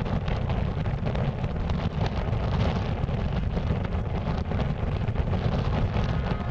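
Strong wind buffeting the microphone: a steady low rumble with constant crackling gusts.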